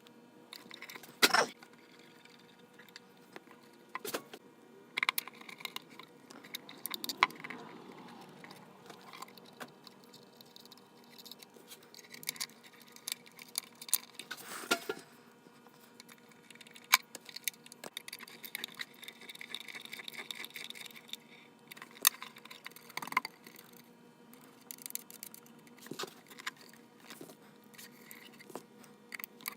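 Small metal mandolin hardware being handled and fitted onto the instrument: scattered light clicks, taps and rattles of metal parts against each other and the wooden body.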